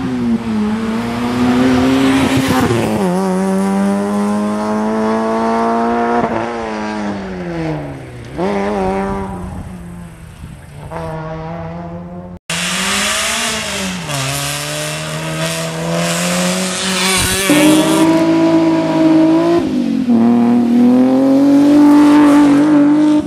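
Rally car engines driven hard on a tarmac special stage, the engine note repeatedly dropping and climbing again as the cars brake and accelerate. An abrupt cut about twelve seconds in splits it into two passes.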